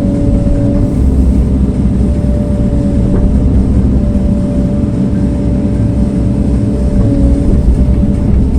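Engine of a heavy earthmoving machine running steadily under load, with a steady whine over its low running sound.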